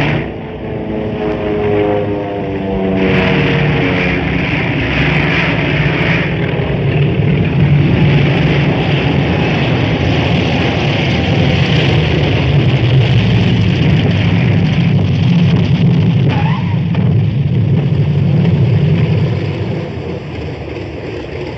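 TBF Avenger's radial piston engine and propeller droning steadily in flight, with a falling pitch over the first few seconds as the plane comes in to land on the carrier; the sound eases a little near the end.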